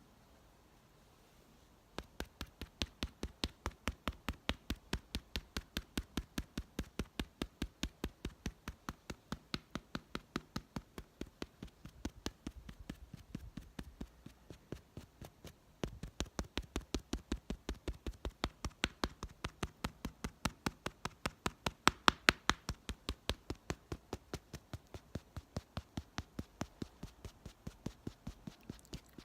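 Rapid, even tapping, about five taps a second, starting about two seconds in. It turns fainter for a few seconds in the middle, then resumes at full strength, loudest a little past the middle.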